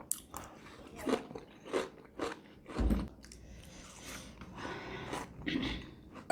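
A person chewing and biting food close to the microphone, with a series of short crunchy bites and mouth sounds.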